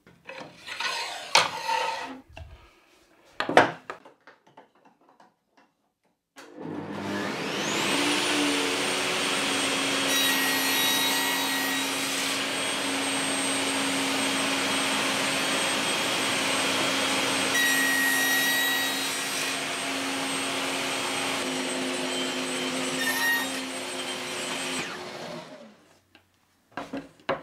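A few knocks from handling a plywood board, then a table saw starts up, runs steadily while the blade cuts a few short notches into the edge of a plywood board, and switches off and winds down near the end.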